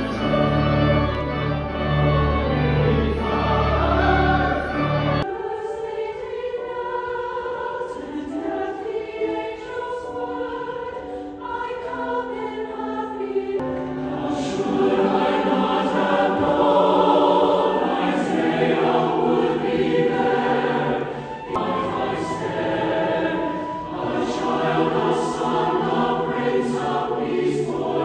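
Large church choir singing in parts, with low sustained bass notes beneath the voices at first. The sound changes abruptly about five seconds in to a closer recording of the choir, and a fuller low accompaniment returns about halfway through.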